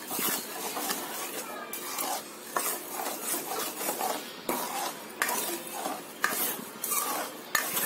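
Steel spoon stirring melting jaggery and water in a kadhai on high flame, with repeated scrapes and clinks of metal against the pan.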